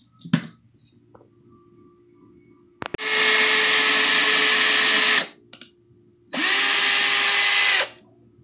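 Bauer 20V lithium cordless drill driver running in two bursts, about two seconds and then about a second and a half, drilling a hole in the cabinet frame. Each burst is a steady motor whine; the second rises in pitch as it spins up and falls as it stops.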